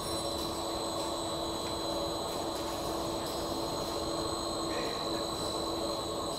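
Biodegradable cast film extrusion line running: a steady machinery drone with a constant high whine over a lower hum.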